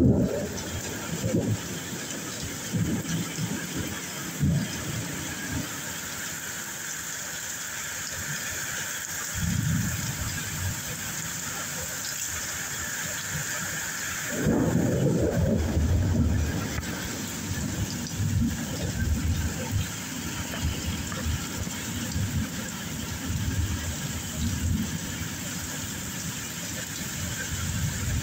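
Thunderstorm rain falling steadily, with wind gusts rumbling at irregular intervals, the strongest about halfway through.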